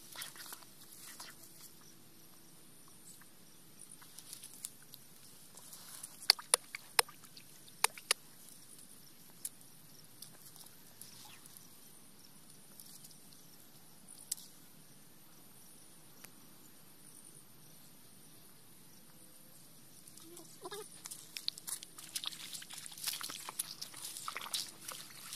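Footsteps through dry grass and brush, a dense rustling and crackling that starts about twenty seconds in. Before that there is only a faint background with a few sharp clicks about six to eight seconds in.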